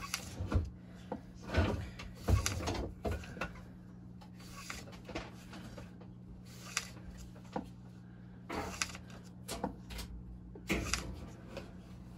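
Steel edge of a lathe tool stroked across fine-grit wet sandpaper on a glass plate: a series of short scraping strokes at uneven intervals, honing the edge.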